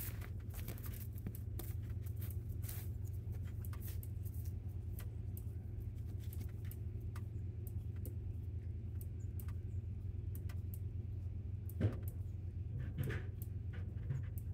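Cattle eating grain: many small, scattered crunches and clicks over a steady low hum, with one louder knock about twelve seconds in.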